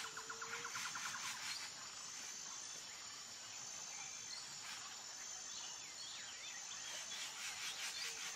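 Outdoor nature ambience: a rapid insect trill in the first second or so, a steady high whine, and scattered bird chirps over a low hiss.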